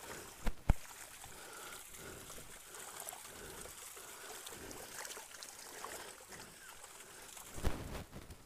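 Water trickling steadily, with two sharp knocks about half a second in and a few more knocks near the end.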